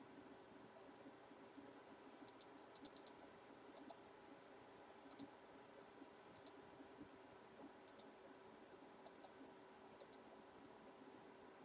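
Faint computer mouse clicks, mostly in quick double-clicks, about eight groups spread through, over a low steady hum.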